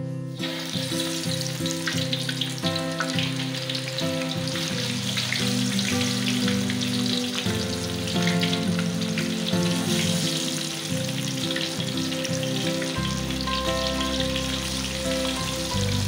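Slices of Spanish mackerel sizzling and crackling in hot oil in a wok, the frying starting as the fish goes in and continuing steadily. Background guitar music plays underneath.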